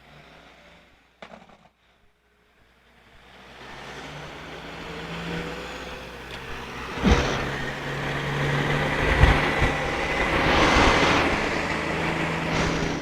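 Near silence for about three seconds, then passing road traffic swelling up as a vehicle approaches and goes by, with a couple of low knocks about seven and nine seconds in.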